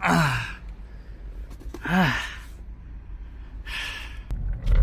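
A man sighing twice with a falling pitch, then a breathy exhale; a couple of small clicks near the end.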